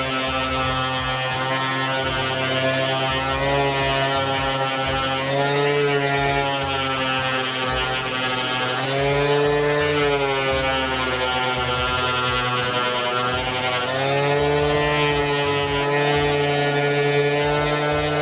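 Skil electric random orbital sander running steadily on a plastic scooter fairing, its motor hum wavering in pitch now and then as it works the surface, sanding the old paint down for a repaint.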